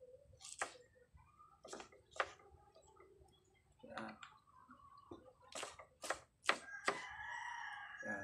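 A kitchen knife chopping pineapple on a wooden cutting board: sharp knocks at irregular intervals, about nine in all. Near the end a chicken calls in the background with a drawn-out cry.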